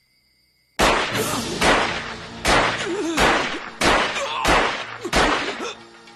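A handgun fired about seven times in quick succession, a shot roughly every 0.7 seconds, each a sharp crack with a short decay, starting about a second in.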